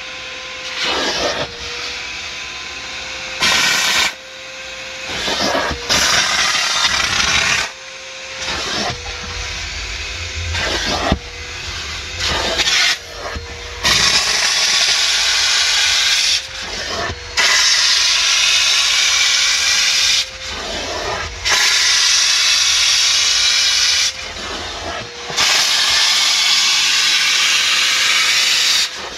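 Steam cleaner nozzle jetting steam onto car carpet in loud hissing blasts that start and stop abruptly every few seconds, over the steady whine of a vacuum extractor pulling out the loosened dirt and moisture.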